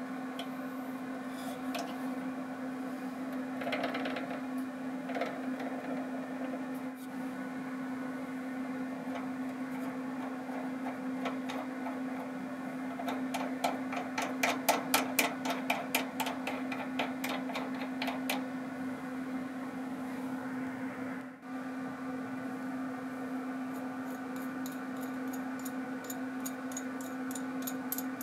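A nut clicking and rattling quickly along a brass threaded rod for about five seconds midway, over a steady hum.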